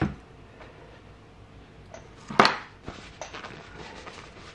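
A few light clicks from tools and small parts being handled on the workbench, with one sharp clack about halfway through.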